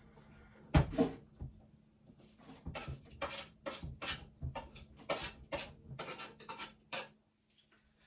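A bowl being scraped and wiped clean of daikon peelings: a couple of knocks about a second in, then a quick run of short rubbing strokes, about three a second, that stops suddenly near the end.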